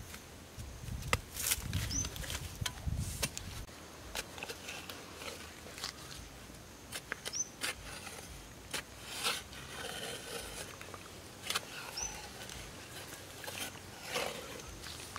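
A digging bar thudding into damp soil in the first few seconds, then scattered clicks and scrapes of the bar and loose earth being worked by hand. A short high chirp comes three times, about five seconds apart.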